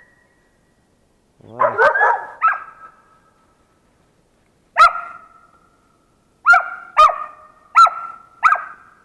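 Laika hunting dog barking: a quick run of barks about two seconds in, then single sharp barks every second or so through the second half. This is the laika barking up at the marten lodged high in the tree.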